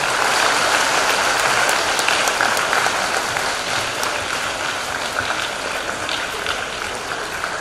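An audience applauding with sustained clapping that is strongest at the start and eases off gradually.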